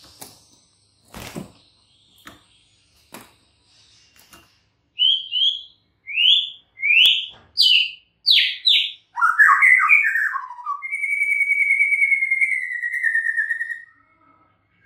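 White-rumped shama singing in its cage. First come a few soft knocks as it flits about. Then a run of about six loud notes, each sliding down in pitch, followed by a few lower slurred notes and a long trill of about three seconds.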